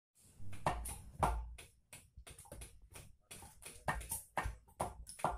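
Knives chopping food on a wooden surface: an uneven run of sharp strikes, each a dull thud with a crack, two or three a second and overlapping as several people cut at once.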